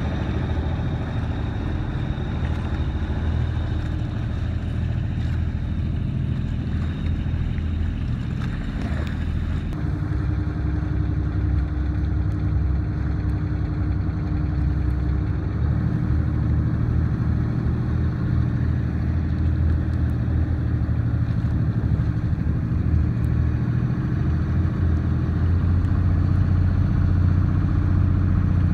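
Outrigger boat's engine running steadily under way, a continuous low drone mixed with the rush of water and wind; the sound shifts in character about ten seconds in.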